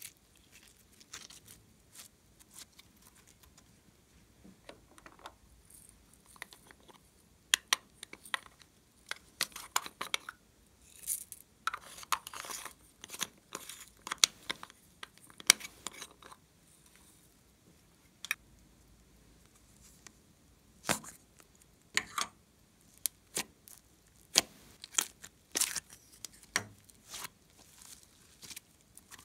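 Glossy slime being squeezed, folded and stretched by hand: irregular sticky crackles and small pops, with quiet gaps between.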